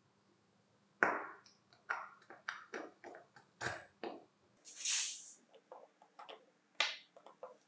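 Sharp clicks and taps of the steel shaft, helical cutter and plastic frame of a National KP-150S pencil sharpener's cutter assembly being fitted together on a wooden bench, with a short hiss about five seconds in.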